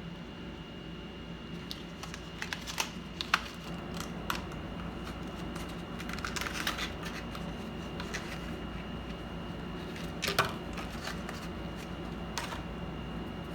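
Light clicks, taps and rustling from computer parts and small tools being handled during work inside an iMac, over a steady low hum. The clicks come scattered and irregular, with a few louder ones now and then.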